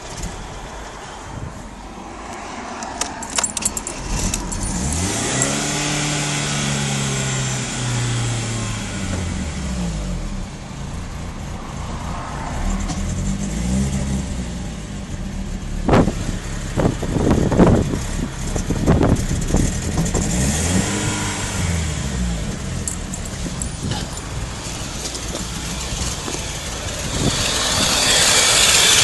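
BMW M43 four-cylinder engine running, revved up and let fall back several times, with a few sharp clinks and knocks in the middle and a louder hiss near the end. The owner suspects a vacuum leak.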